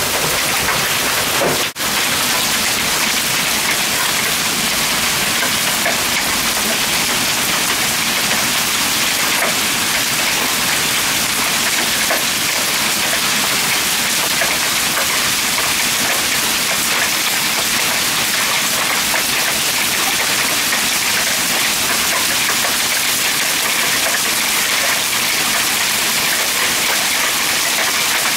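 Hailstorm with heavy rain pelting the ground and the house: a dense, steady hiss. It drops out for a moment about two seconds in.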